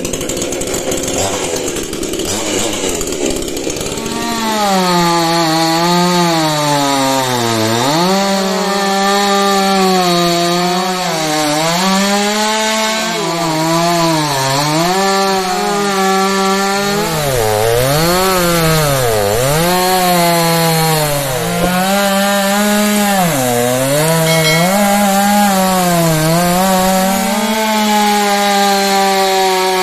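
Powertex petrol chainsaw cutting into a solid block of wood. From about four seconds in, the engine note keeps dropping as the chain bites and bogs under load, then climbs back, again and again.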